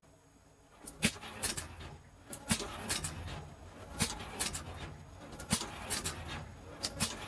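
Automatic capping machine on a bottle packing line at work: sharp mechanical clacks, mostly in pairs about every second and a half, over a steady low machine hum.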